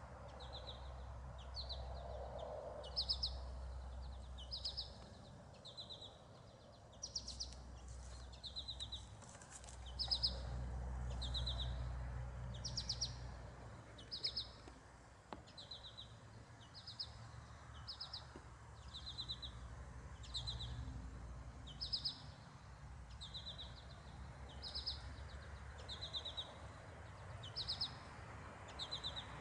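A bird calling over and over in short trilled notes, about one a second, alternating between a higher and a lower pitch, over a faint low rumble.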